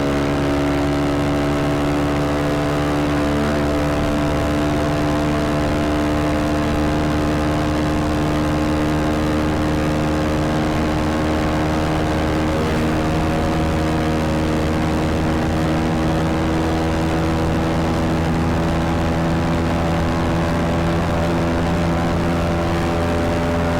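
Motorcycle engine running steadily, its pitch rising slowly.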